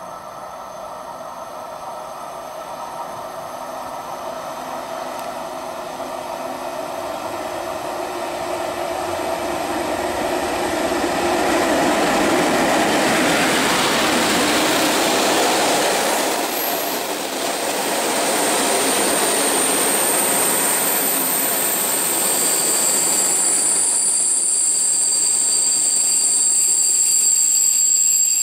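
EU07 electric locomotive hauling passenger coaches approaches and passes close along the platform, growing steadily louder as it nears. From about halfway through, a steady high-pitched squeal rises from the coaches as the train brakes into the station.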